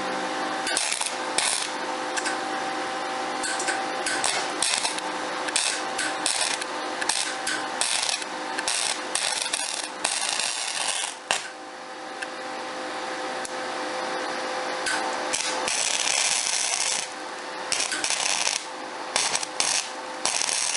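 Lincoln Pro 175 MIG welder laying a weld bead into a grooved root joint on a steel jack stand: a steady, irregular crackle, breaking off briefly about eleven seconds in before the arc strikes again.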